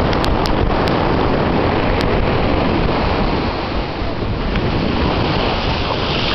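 Surf washing in over a sandy beach, with wind buffeting the microphone, steady throughout. A few light ticks in the first two seconds.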